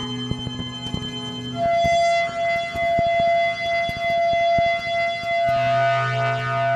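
Soma Lyra-8 analog drone synthesizer playing sustained tones: a wavering, siren-like mid-pitched tone comes in about a second and a half in, and a low drone with a dense cluster of overtones joins near the end, with scattered clicks throughout.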